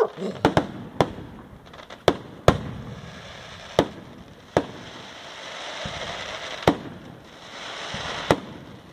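Fireworks going off: a string of about nine sharp bangs, a second or more apart, with a crackling hiss between them in the second half.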